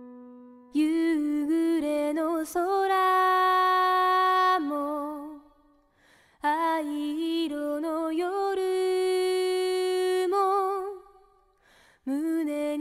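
A woman singing a slow song solo with little or no accompaniment: two long phrases with held, wavering notes, each followed by a short pause, and a new phrase starting near the end.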